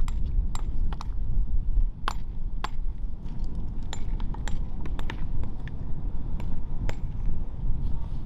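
Sharp, irregular clinks of stones knocking together, roughly one or two a second, over a steady low rumble: chunks of iron ore being picked up and dropped into sacks.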